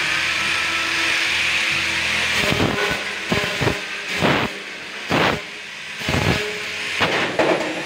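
Handheld angle grinder working on the metal tubing of a sidecar frame: a steady grinding for the first couple of seconds, then a string of short separate passes against the metal.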